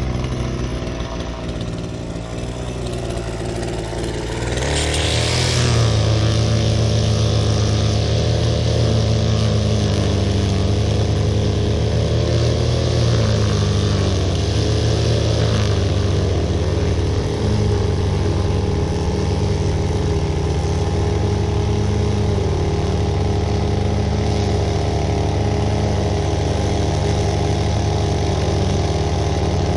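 String trimmer running and cutting grass along the edge of a concrete path, over the steady drone of a petrol rotary lawn mower engine. The trimmer's sound grows louder about five seconds in and then holds steady.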